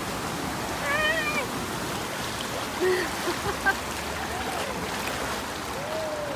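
Shallow river water rushing steadily over a rocky riffle, heard close to the surface. A few short, high, wavering voice calls sound over it, the clearest about a second in and another near the end.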